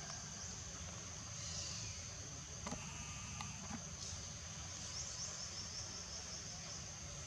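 Steady high-pitched buzzing of insects, with a low steady rumble underneath and a few faint clicks about halfway through.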